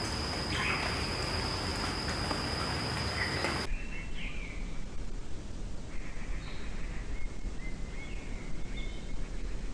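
Natural outdoor ambience. A steady high-pitched insect drone over a hiss cuts off abruptly about four seconds in, leaving a quieter background with a few faint, short bird chirps.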